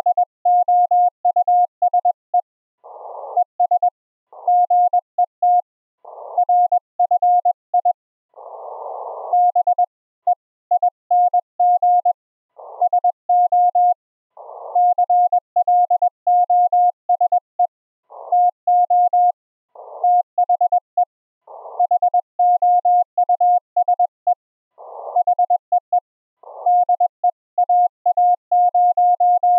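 Morse code (CW) from an Elecraft K3 transceiver's audio: a single steady tone of about 700 Hz keyed in dots and dashes at about 21 words per minute. Between groups of characters come short patches of rising receiver hiss, typical of the rig dropping back to receive between words on break-in.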